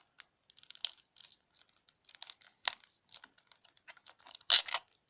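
Foil booster-pack wrapper crinkling and being torn open: a run of small crackles, with one louder tear near the end.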